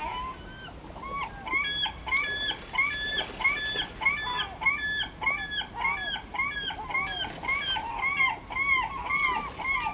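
A bird calling in a long rapid series of short arched notes, about three a second, over the steady rush of water from the falls.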